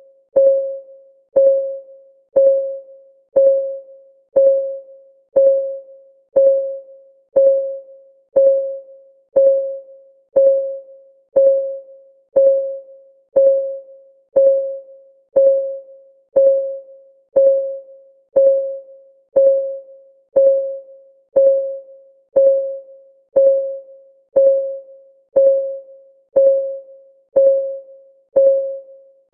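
Countdown timer's clock-ticking sound: a steady tick once a second, each tick a short pitched tone that dies away quickly.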